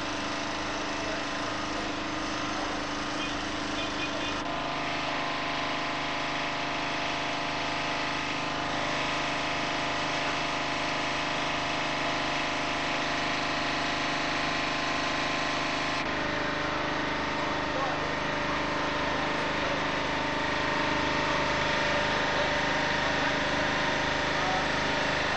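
Steady hum of an engine running, with street noise and faint voices under it. The sound shifts abruptly twice, about four seconds in and again past the middle.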